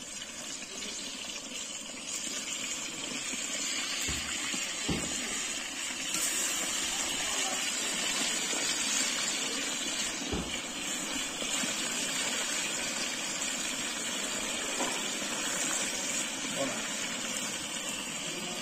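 Chicken pieces deep-frying in hot oil in a cast-iron kazan over a wood fire: a steady, loud sizzle, with a few dull knocks along the way.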